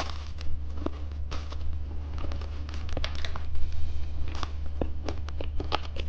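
Plastic candy packaging handled up close, giving irregular sharp crinkles and clicks, over a steady low hum.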